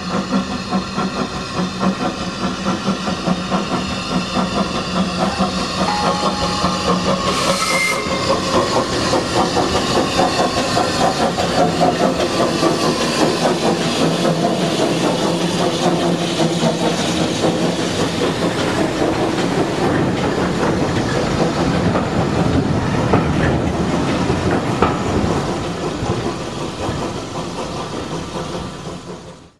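Saddle-tank steam locomotive working a train of coaches, its exhaust beating as it approaches, then passing close with the coaches running by and fading as it goes away near the end. A short burst of hiss about eight seconds in.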